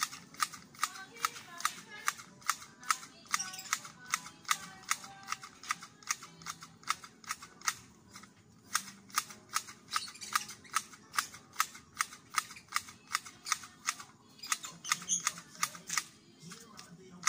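Hand grass shears with wooden handles cutting grass, the blades snipping shut in sharp clicks about three times a second, with a couple of short pauses.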